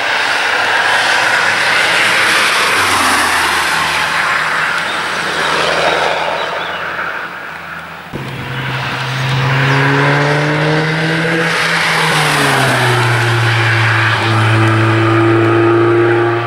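Cars driven hard on a race track going past, engine and tyre noise. After a cut about halfway through, a sports car's engine pulls under load with its note rising, dropping, then holding steady.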